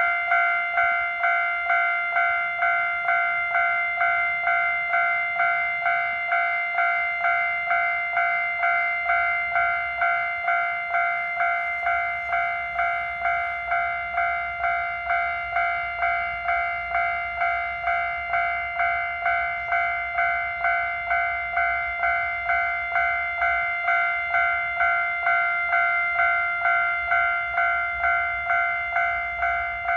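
Japanese railway level-crossing alarm with the old JNR-style electronic bell sound, starting abruptly and ringing a steady, fast kan-kan of bell-like strikes, each fading before the next.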